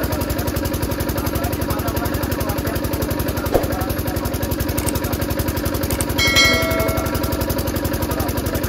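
An engine running steadily with a fast, even beat. About six seconds in, a brief high ringing tone with several pitches sounds over it.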